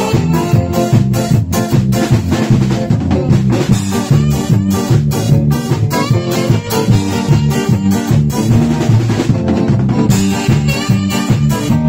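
A small live band playing a song with a steady beat: drum kit, electric bass, electric guitar and saxophone together.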